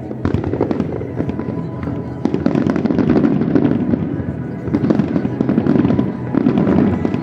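Fireworks display bursting in a rapid, dense run of cracks and bangs that grows louder and thicker about two seconds in, with show music playing under it.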